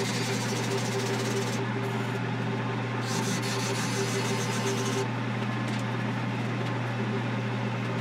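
Grizzly G0462 variable-speed wood lathe running with a steady motor hum while a hand-held turning tool cuts into the spinning wood blank, a continuous scraping hiss as shavings fly off.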